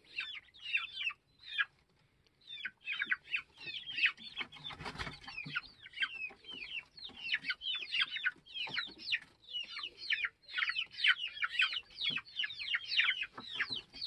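A flock of young chickens cheeping and peeping without a break, many short high calls that fall in pitch and overlap. There is a brief lull about two seconds in and a short rustle at about five seconds.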